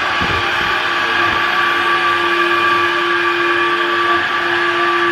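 Window-cleaning robot holding itself to wet bathroom wall tiles by suction, its vacuum fan running with a steady whine over a hiss. The pitch wavers briefly about four seconds in.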